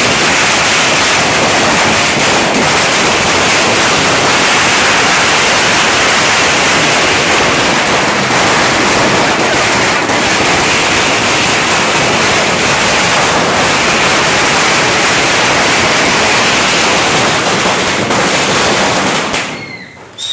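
A long Diwali firecracker string (ladi) going off: a loud, dense, unbroken rattle of rapid bangs that dies away near the end.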